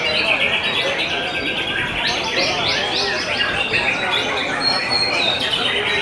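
Many caged songbirds singing over one another in rapid, overlapping trills and whistles, among them white-rumped shamas (murai batu).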